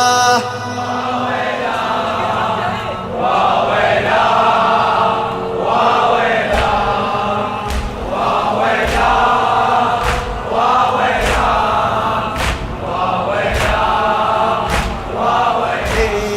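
A group of men chanting a lament refrain in unison, each phrase falling in time with a sharp percussive beat a little over once a second.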